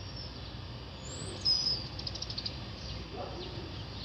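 A small bird singing: a high whistled note about a second in, followed by a quick trill of high notes, over steady background noise.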